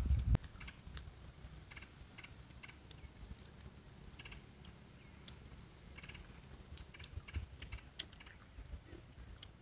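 Faint, irregular clicks and taps of people eating at a picnic table, with cups and food containers being handled, and a sharper tap about eight seconds in.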